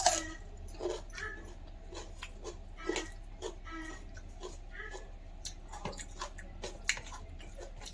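Close-miked eating: chewing and mouth smacking with scattered sharp clicks and a few louder crunches.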